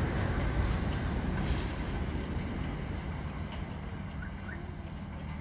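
Deep rumble of a collapsing stadium roof and falling debris, slowly dying away.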